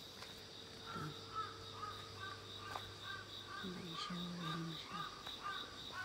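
Insects chirping in a steady, pulsing trill, with a bird calling in a quick run of short, repeated notes from about a second in.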